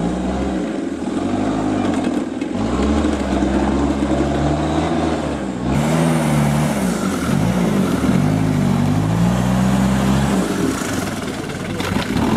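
Engines of modified off-road 4x4s revving up and down in repeated surges as they crawl through deep mud. The sound changes abruptly about six seconds in to a second vehicle's engine, revving in the same way.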